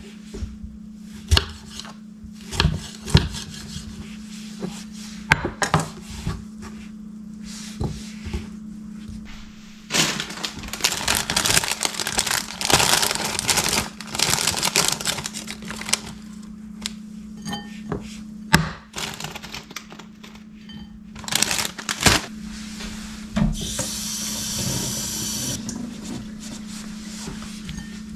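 A kitchen knife taps and clicks on a wooden cutting board as a tomato is sliced, in separate strokes. About ten seconds in, a plastic bag crinkles and rustles for several seconds as bean sprouts are tipped out of it. Near the end there is a brief steady hiss, with a low steady hum underneath throughout.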